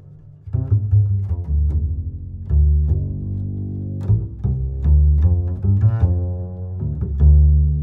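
Background music with a prominent low bass line, its notes changing about every half second, and a melody over it.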